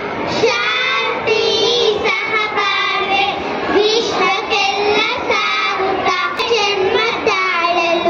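Young children singing a patriotic song together into microphones, one melody line carried through the sound system.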